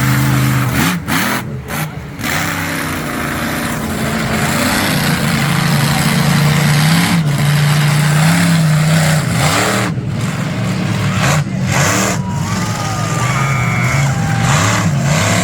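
Monster truck engine revving, its pitch rising and falling again and again.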